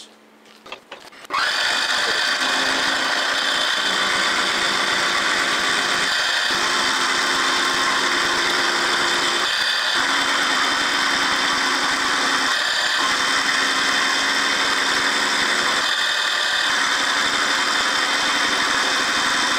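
Chester benchtop milling machine cutting the edge of a mild steel plate with an end mill: a loud, steady cutting noise with a high whine, starting suddenly about a second in and dipping briefly every few seconds. The end mill is a cheap one that cuts poorly, which the machinist calls rubbish.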